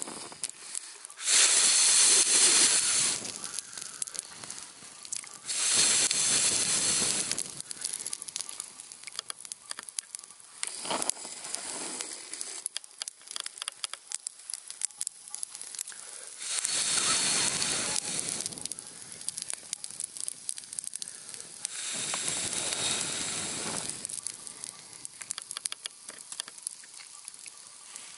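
Campfire crackling and popping, with four loud rushing swells of hiss, each lasting about two seconds and spread across the stretch.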